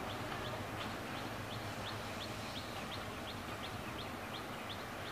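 Diesel multiple unit's engine running low and steady as the train pulls away, with a quick series of short high chirps, about two to three a second, over it.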